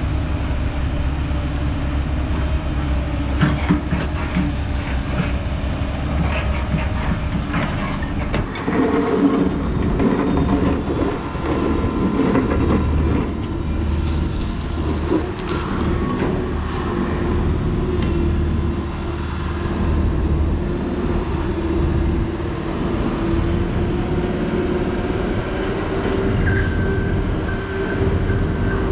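Hyundai 140LC-7 crawler excavator's diesel engine running under load while it digs, with knocks and clanks from the bucket working soil and swinging loads to a dump truck. Near the end a reversing alarm starts beeping steadily.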